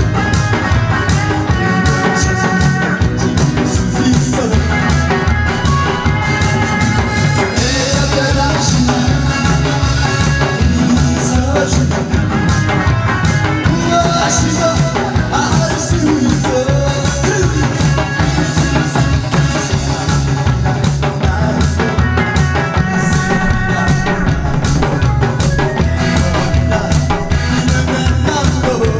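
Loud amplified song accompaniment with a steady drum beat, played over a PA for a live pumba performance.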